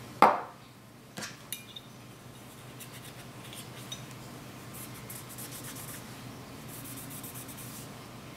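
A sharp knock about a quarter second in as the aerosol can of cleaner is set down on the mat, a few light metallic clicks as the pistol slide is picked up, then a cleaning patch wetted with CLP solvent rubbing over the slide, a faint steady scratchy wiping.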